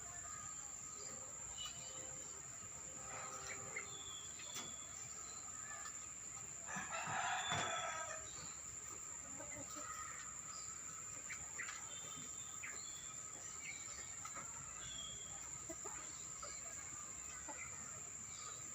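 A domestic rooster crows once, about seven seconds in, the loudest sound here. Around it come scattered short bird chirps over a steady high-pitched insect buzz.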